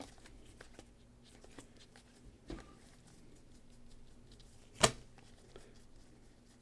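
A stack of trading cards handled by gloved hands, the cards sliding and flicking against each other in soft, scattered clicks, with a sharper snap just under five seconds in and a smaller one about halfway through.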